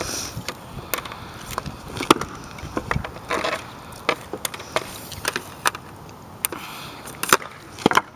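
Street hockey shots on asphalt: about ten sharp, irregular cracks and clacks of a hockey stick hitting pucks and balls, with the pucks smacking off the goalie's pads and clattering on the pavement, and a couple of short scrapes. The loudest knocks come about two seconds in and near the end.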